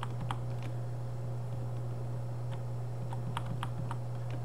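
Computer keyboard keys tapped to reload a browser page: three quick clicks at the start, then about five more spaced taps in the second half, over a steady low electrical hum.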